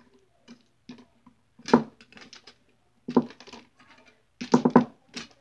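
Miniature pool balls clicking against one another and onto the table as they are being set up: scattered sharp clicks, with a quick run of several near the end.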